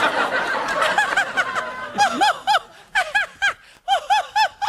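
Children in a studio audience laughing together for about two seconds. Then one high-pitched voice laughs on its own in quick bursts of three "ha-ha-ha".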